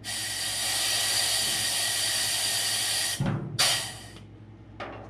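Compressed air hissing loudly from a pneumatic rivet squeezer's air line for about three seconds. Then a low thump and a second, shorter hiss.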